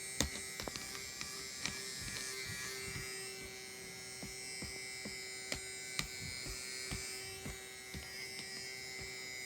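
A Lavínia 40 cm electric fan running: a steady motor hum and whir, with scattered light clicks and ticks throughout.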